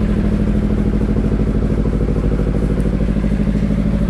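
Kirloskar HA294 two-cylinder air-cooled diesel engine of a 15 kVA generator running steadily at no load, heard through its closed soundproof canopy. It runs smoothly in one even note.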